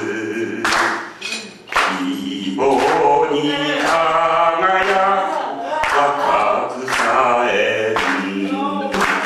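An elderly man singing a slow Japanese song into a microphone with no instruments, holding long wavering notes. Sharp claps keep time about once a second.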